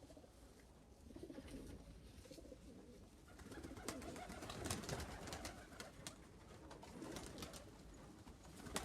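Pigeons cooing faintly in a loft, a low wavering murmur that swells in the middle, with scattered light clicks.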